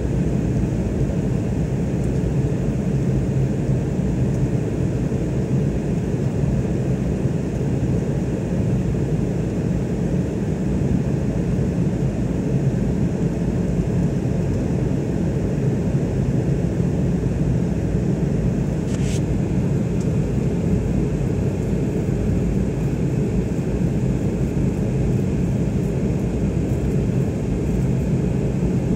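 Steady cabin noise inside an airliner during its climb after takeoff: engine drone and rushing airflow, a low even rumble.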